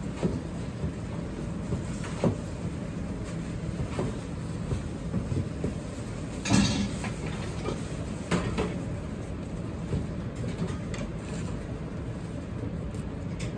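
Steady low rumble of a busy commercial kitchen, with scattered clinks and knocks as a wire-mesh spider strainer tips freshly fried karaage chicken onto a ceramic platter. The loudest knock comes about six and a half seconds in.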